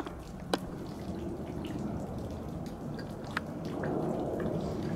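Twin-engine jet airliner overhead, its engines a low steady rumble that grows a little louder near the end, with a few sharp clicks about half a second in and again just past three seconds.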